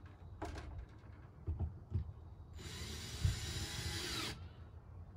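Power drill driving a screw, running for just under two seconds in the middle, with its pitch wavering as it runs. A few light knocks come before it.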